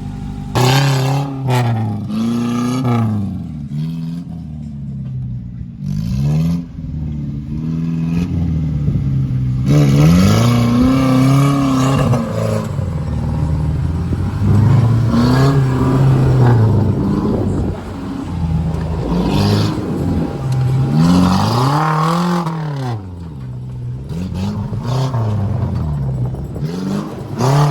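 A 4x4 off-road vehicle's engine revving up and down over and over, the pitch climbing and falling every couple of seconds as the driver works the throttle.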